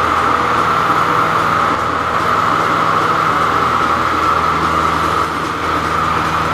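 Single-engine light aircraft's piston engine and propeller running steadily, a constant drone heard from inside the cockpit.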